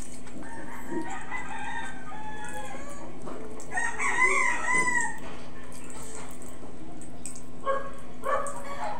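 A rooster crowing once, a long wavering call about four seconds in, with fainter, shorter calls before it and near the end.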